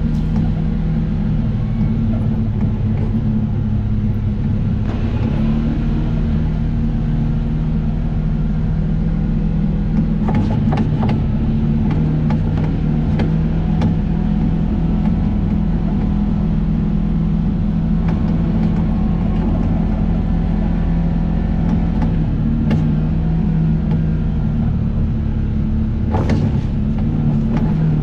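Off-road vehicle's engine running steadily while driving along a trail, with a few sharp knocks and clatters about ten seconds in and again near the end.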